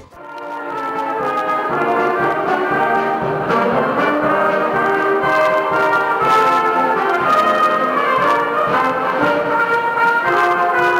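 Amateur wind band of saxophones and brass playing a tune together. It fades in over the first two seconds, then plays at a steady level.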